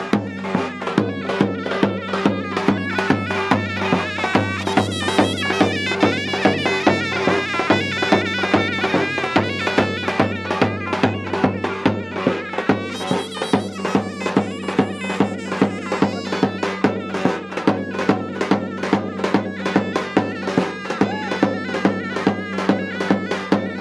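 Traditional folk dance music: a shrill reed wind instrument plays a busy melody over a steady drone, driven by a drum beating about two to three times a second.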